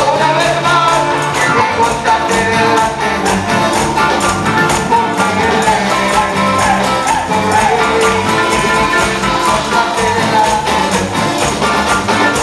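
A live band plays upbeat worship music on electric guitars and bass, with hand tambourines shaken and struck in a steady beat.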